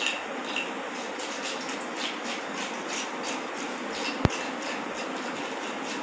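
Knife scraping scales off a large fish in quick, repeated strokes, about three a second, with one sharp knock about four seconds in.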